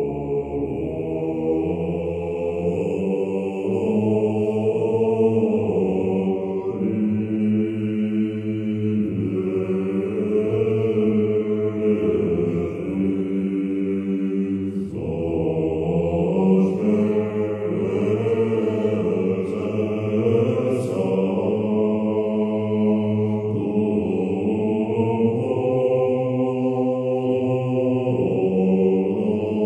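Background music: a slow, droning chant of sustained voices, with a brief break about fifteen seconds in.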